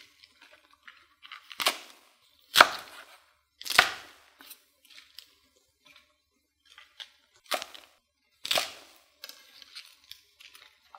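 Chef's knife chopping through cabbage leaves onto a wooden cutting board: five sharp, irregularly spaced chops, the loudest about two and a half seconds in, with fainter knocks between.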